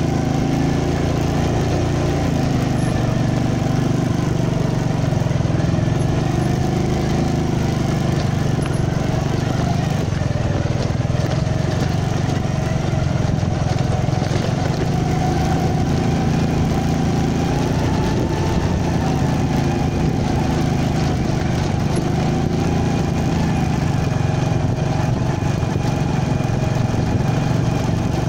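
Small motorcycle engine running steadily while riding along.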